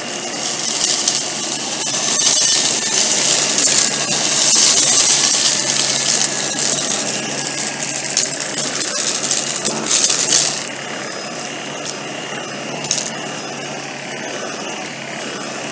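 Tineco PURE ONE S11 cordless vacuum, handheld with its mini motorized tool, running steadily on carpet while it sucks up chili flakes and other dry debris, which rattle and crackle through the tool. The rattle is heaviest through the first ten seconds or so, then eases to the plain motor whine with one more brief clatter.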